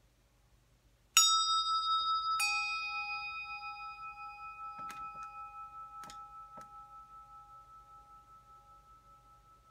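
Two brass Tibetan hand bells of different pitch, struck one after the other about a second apart. Both ring on in clear, steady tones that fade slowly, with a few faint knocks partway through.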